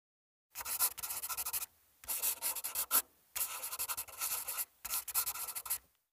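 Pen writing on paper: quick scratchy strokes in four spells of about a second each, with short pauses between them.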